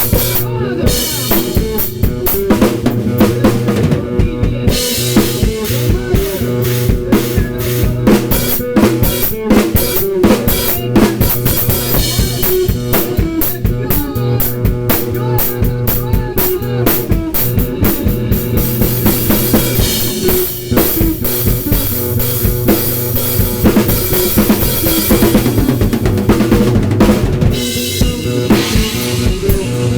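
Drum kit improvisation on Gretsch and Ludwig drums with Paiste cymbals: bass drum, snare and rimshots played busily and continuously. Underneath runs a sustained pitched backing sample triggered from a drum pad.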